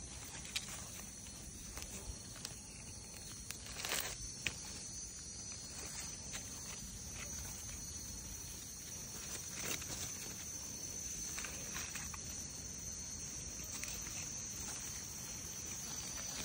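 A steady high-pitched drone of forest insects, with scattered clicks and scrapes from a small knife digging into soil and leaf litter. The clicks are loudest in a short cluster about four seconds in.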